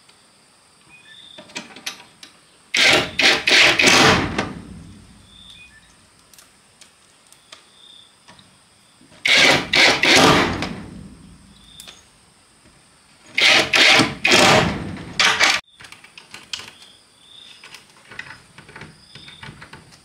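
A door banging and rattling in three bursts, a few sharp knocks each, as if it is being opened, shut and shaken.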